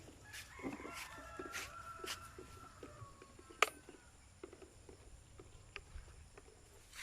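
A rooster crows once, a drawn-out call of about three seconds that falls slightly in pitch at the end, over scattered light clicks. A sharp click comes just after the crow ends.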